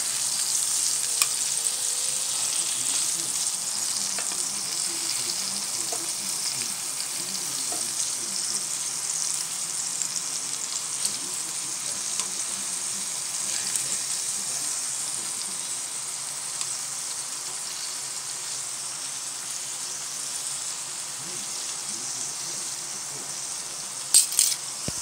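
Steak pieces sizzling in hot oil in a stainless steel frying pan, a steady hiss that slowly dies down. A few sharp clicks, with a quick cluster of louder ones near the end.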